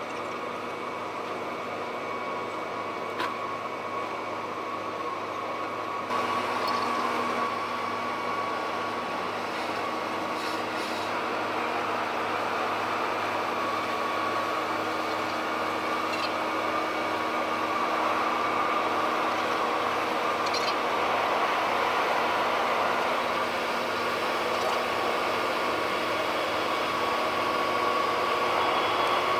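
A large car ferry's engines and ventilation fans running as it comes alongside the quay: a steady machinery hum and hiss with a few held whining tones, growing a little louder as the ship draws closer.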